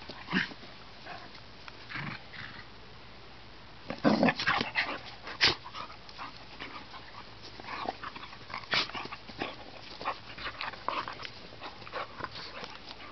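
Two dogs play-fighting, making short, irregular play growls and mouth snaps, which come much more often from about four seconds in.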